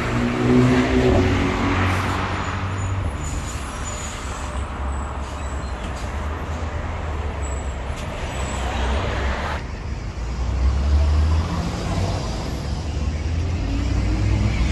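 Road traffic passing close by: cars and heavier vehicles driving past with a steady low engine and tyre rumble that swells and fades as they go by.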